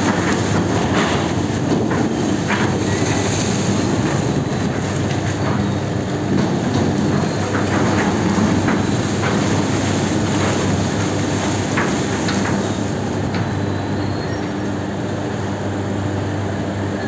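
Sugar mill cane-unloading machinery running with a steady mechanical hum and clatter while a tipped truckload of sugarcane is emptied. Sharp knocks stand out now and then.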